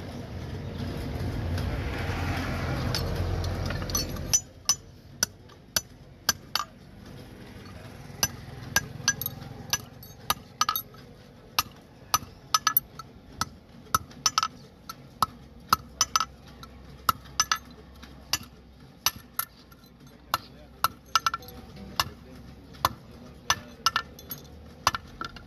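A steel hammer strikes a small iron donkey shoe on an anvil to shape it: a long run of sharp metallic clinks, irregular but up to about two a second, each with a short ring. The strikes start about four seconds in, after a rough rushing noise.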